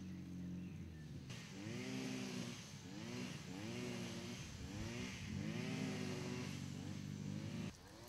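A small engine running steadily, then revved up and down over and over, about once a second, stopping abruptly near the end.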